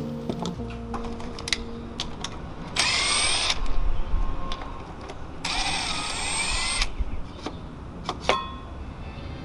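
Handheld power drill running in two short bursts of about a second each, its whine rising and falling in pitch, with a few sharp clicks of tools between.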